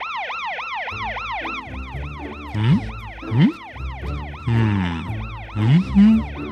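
Cartoon police car siren wailing fast, its pitch swooping down and up about three times a second, sounded to get the fire truck's attention. Short low rising swoops and music sit under it.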